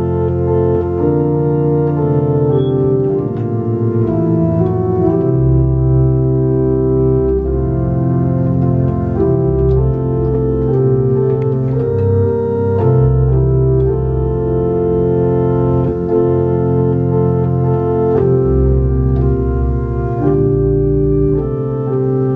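Johannus two-manual digital organ playing slow, sustained chords that change every second or two, with deep bass notes underneath.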